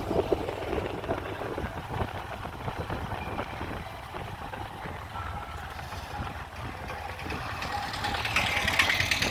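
A vehicle engine running with a steady low rumble, and a hiss that grows near the end.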